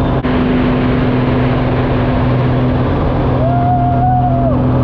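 Aerobatic plane's engine and propeller droning steadily at a constant pitch inside the cockpit, with wind rush over the canopy. About three and a half seconds in, the passenger lets out one high, held whoop lasting about a second.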